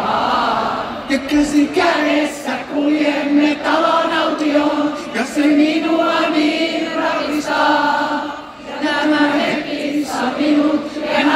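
Concert crowd singing a chorus along in unison, many voices holding long sung notes, with little of the band audible underneath.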